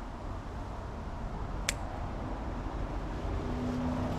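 Steady low rumble with a faint droning hum that comes in and grows over the second half, and a single sharp snip about halfway through, as of a basil stalk being cut.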